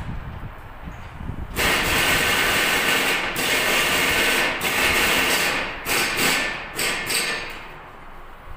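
A loud, steady hiss starts about one and a half seconds in. After a few seconds it breaks into several shorter hisses that fade out near the end.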